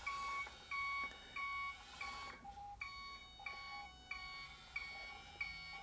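Reversing beeper of the Turbo Racing C50 1/76-scale RC semi-truck, playing through its tiny onboard speaker as the truck backs up. It gives faint, evenly spaced electronic beeps, about three every two seconds, with a short break about halfway.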